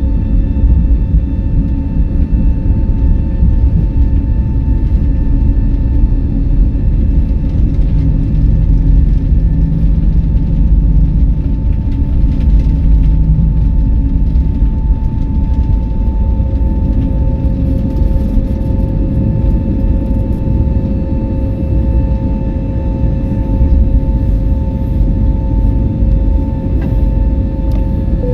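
Airbus A320neo's CFM LEAP-1A turbofan engines at high thrust, heard from inside the cabin: a loud, steady low rumble with a steady engine whine, which grows stronger in the second half.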